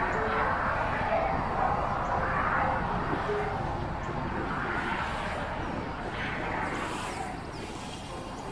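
Street traffic noise, with wind rumbling on the microphone.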